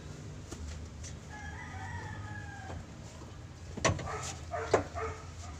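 A rooster crowing once, a call of about a second and a half, followed by a few sharp knocks near the end as work goes on at the van's gear-shifter base.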